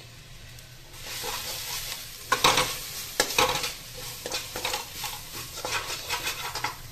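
Chopped onions frying in oil with spice powders, stirred with a spatula: sizzling with repeated scraping strokes of the spatula against the pan and a few sharp clicks, starting about a second in and loudest a little after two seconds in.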